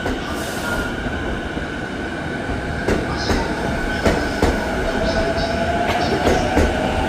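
E233-6000 series electric train pulling away: its motors give a steady high hum, and a whine starts rising slowly in pitch about five seconds in. The wheels clack over rail joints a few times.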